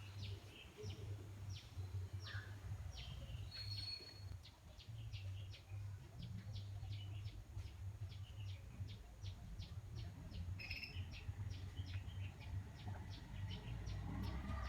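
A small bird repeating short, high chirps, about two a second at first and quickening to about three a second in the second half, over a steady low hum.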